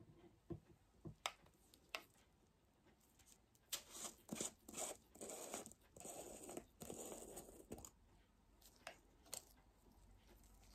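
Faint handling noises of nail product containers, an acrylic liquid bottle and a powder jar, being picked up and set down on a towel: a few light clicks and knocks, with a stretch of rustling in the middle.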